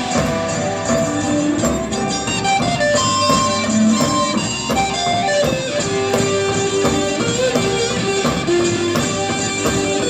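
Live rock band playing an instrumental passage: electric guitar holding long notes over drums keeping a steady beat.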